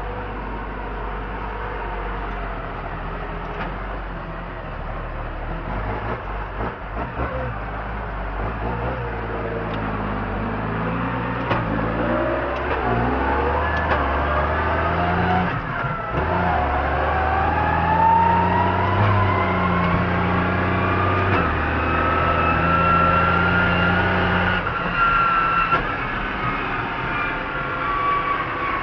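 Case MX110 tractor running under way, with a whine that starts about a third of the way in and rises steadily in pitch as the tractor speeds up, then eases off near the end. The whine is the unwanted noise the tractor is making.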